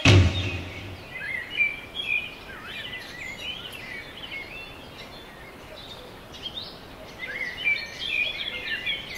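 The music ends on one last beat that dies away within the first second. Small birds then chirp and twitter in quick high phrases, with clusters of calls about two seconds in and again near the end, over faint outdoor background noise.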